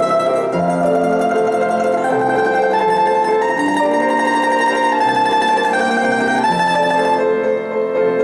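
Domra playing a slow, lyrical melody in held notes over piano accompaniment.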